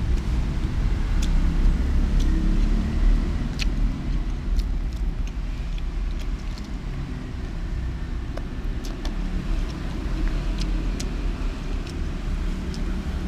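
Steady low rumble of outdoor background noise, with scattered sharp light clicks from eating with wooden chopsticks.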